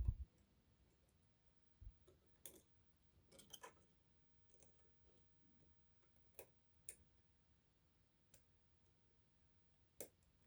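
Faint, scattered clicks and brief scraping rattles of a pick and tension tool working the pins of an Adamant spinning-key lock, with a low thump at the very start.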